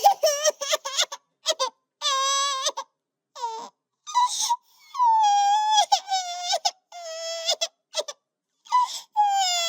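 High-pitched crying sound effect, edited together from short choppy sobs and longer falling wails. Each cry starts and stops abruptly, with dead silence between.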